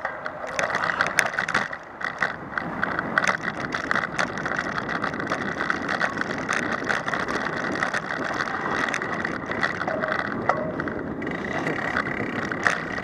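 Bicycle riding over a rough dirt trail, picked up by a camera mounted on the bike: steady tyre noise on the ground with frequent clicks and rattles as it jolts over bumps.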